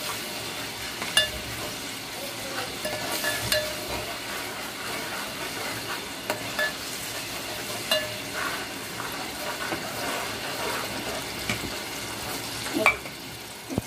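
Tamarind-kokum and garlic paste sizzling as it fries lightly in hot oil, stirred with a metal ladle that clinks sharply against the metal pot a few times.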